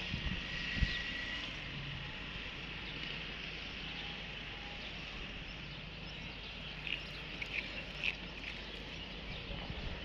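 Open-air ambience: a steady high hiss of insects with a few short bird chirps about seven to eight seconds in.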